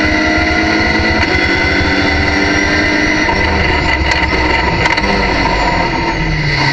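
Race car engine heard from inside the cockpit under hard acceleration, shifting up from third to fourth gear, then braking and changing down to second, the engine note falling near the end. A couple of short knocks come with the downshifts.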